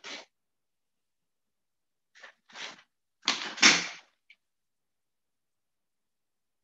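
Pen and plastic set squares being handled on drawing paper: a brief scrape at the start, then a few short rustling, sliding bursts, the loudest about three and a half seconds in, as the pen is set down across the set square.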